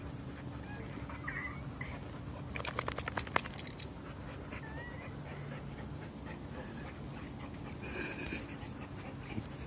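Boxer dog making short, faint high whines over a steady low hum, with a quick run of clicks about three seconds in.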